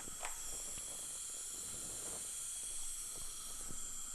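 Steady high hiss of dental suction, with a short falling squeak about a quarter second in and a few light clicks and taps.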